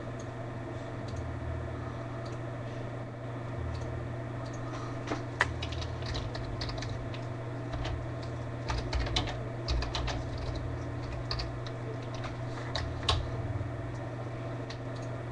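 Typing on a computer keyboard: scattered key clicks in short runs, mostly in the second half, over a steady low hum.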